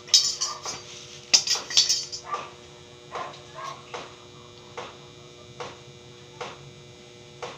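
Steel bars for a window grille clinking and knocking against each other as they are handled and set out on a concrete floor: a quick cluster of sharp clinks in the first two seconds, then single clinks about every second.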